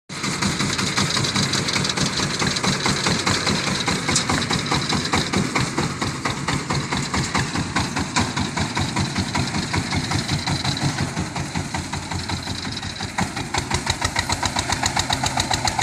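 Single-cylinder diesel engine of a boat-hulled paddy-field tiller (rua pan na) running steadily as the machine drives across the field, a rapid, even beat of firing strokes that stands out more clearly near the end.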